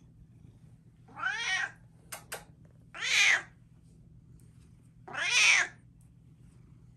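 Bengal cat meowing three times, each call loud and about half a second long, spaced roughly two seconds apart. Two short clicks come between the first and second meow.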